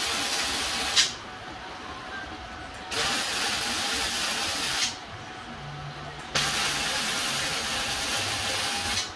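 MIG welding arc on steel: a steady crackling hiss in three runs of about two seconds each, stopping about a second in, starting again around three seconds and again at about six and a half seconds, with brief pauses between beads.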